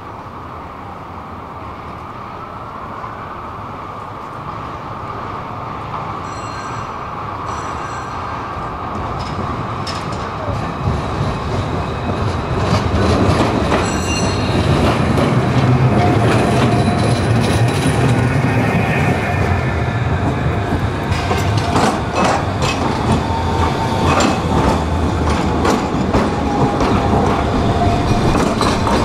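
Trams running on street track: the rumble and clatter of steel wheels on rail grows steadily louder for the first half as a tram approaches, then stays loud as a tram passes close by on a curve. The wheels squeal against the curved rail in the second half.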